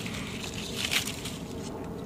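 Outdoor background noise, a steady faint hiss, with a brief rustle about a second in.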